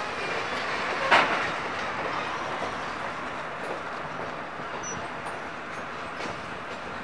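Passenger train cars rolling slowly past, their steel wheels running on the rails with a continuous rumble and occasional clicks over rail joints. A sharp metallic clank comes about a second in, the loudest moment.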